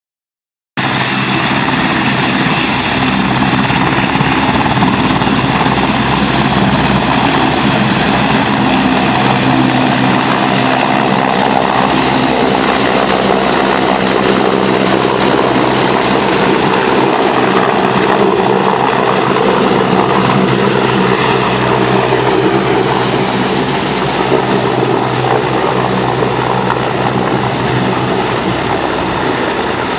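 Helicopter taking off: its turbine and rotor running loud and steady, a dense noise under a stack of steady humming tones, starting abruptly about a second in.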